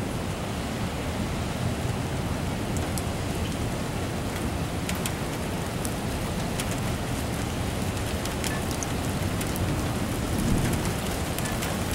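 Heavy rain falling steadily in a thunderstorm. From about three seconds in, sharp drop ticks land close by, and near the end there is a brief swell in the low rumble.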